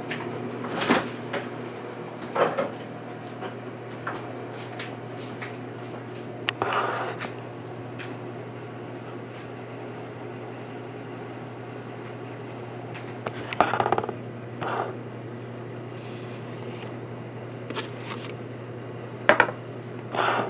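Kitchen clatter: a handful of short clunks and knocks from dishes and cupboards, spread through, over a steady low appliance hum.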